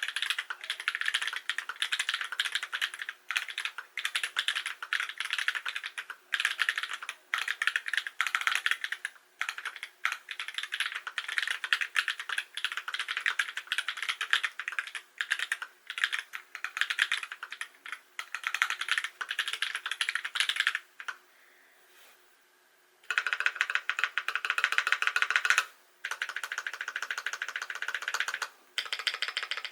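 Custom mechanical keyboard with lubed Holy Panda tactile switches (70g springs) in a Lubrigante case, typed on in a fast, steady stream of key clacks. The typing stops for about two seconds roughly three-quarters of the way through, then resumes just as fast.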